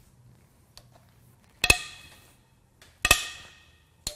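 Head bolts on a Gen2 LT1 small-block Chevy V8 cracking loose under a long breaker bar and socket. There are two sharp metallic cracks about a second and a half apart, each ringing briefly, then a lighter click near the end.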